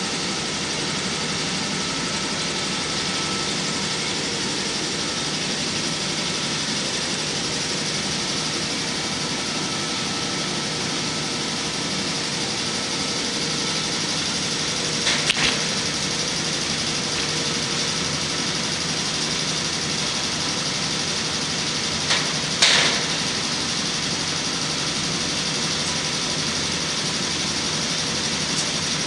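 Steady mechanical hum of running machinery, with a few brief metal clicks about halfway through and again several seconds later as washers and acorn nuts are fitted by hand onto the studs of a steel rack door.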